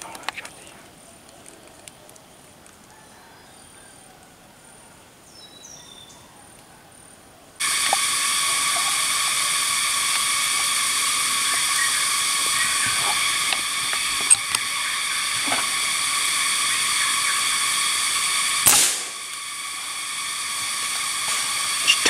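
Loud, steady insect chorus in the forest canopy, a drone of many high pitched layers that starts suddenly about a third of the way in. Near the end a single sharp crack cuts through, and the chorus dips for a moment, then swells back. Before the chorus starts there is only a faint high insect tone and a couple of tiny chirps.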